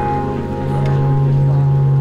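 Sustained low analog synthesizer drone with steady higher tones held above it; the low drone swells about halfway through.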